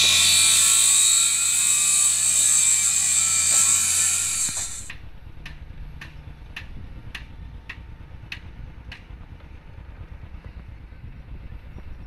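Loud, steady construction-site noise with a low hum for the first few seconds, which cuts off suddenly. It is followed by a quieter stretch with a run of about eight sharp mechanical clicks, roughly two a second.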